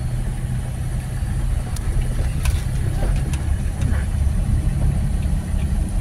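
A car's engine and tyres making a steady low rumble as it drives slowly along a road, with a couple of faint clicks about two seconds in.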